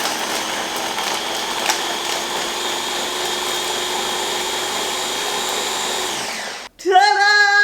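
Ninja Master Prep blender motor running steadily while blending a smoothie with ice and frozen strawberries, then winding down and stopping about six seconds in. Near the end a voice holds a drawn-out sung note.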